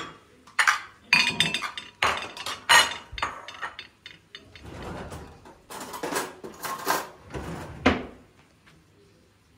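Dishes and pots clattering: china plates set down on a granite countertop while pots and a pan are handled, a string of separate clinks and knocks that stops about eight seconds in.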